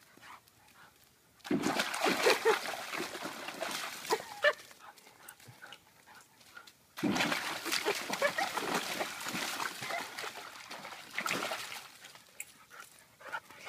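Siberian husky puppy splashing through the water of a plastic kiddie pool, in two bouts: one starting about a second and a half in and lasting about three seconds, and a longer one from about seven seconds in until near the end.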